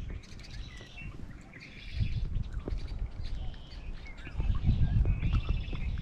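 Wind buffeting the microphone in gusts that build about two seconds in and again near the end, with birds chirping in the background.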